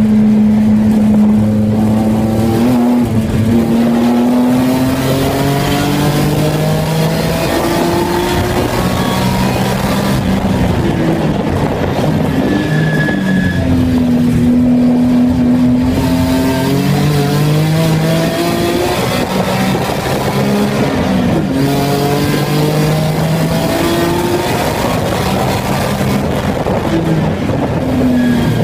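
Race-prepped BMW E46 3 Series engine heard from inside the stripped, caged cabin, its revs climbing through the gears and falling back again and again as the car accelerates, shifts and slows for corners on track.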